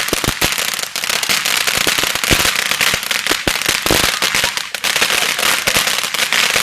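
Firecrackers going off in a dense, rapid crackle of small pops and bangs with no break.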